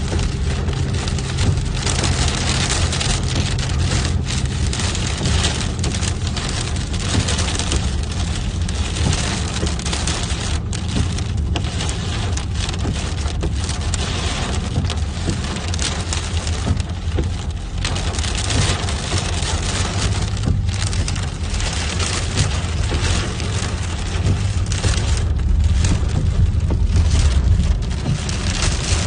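Heavy rain falling, a steady dense hiss, with a deep rumble underneath throughout.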